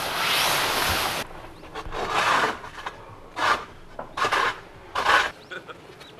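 A series of rubbing, scraping swishes: a longer one at the start, then about four short strokes roughly a second apart.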